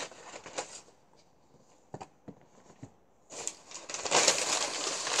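Brown packing paper being pulled out of a cardboard box and crumpled by hand, rustling and crinkling. It goes almost quiet for a couple of seconds with a few light knocks, then the crinkling starts again, louder, a little over three seconds in.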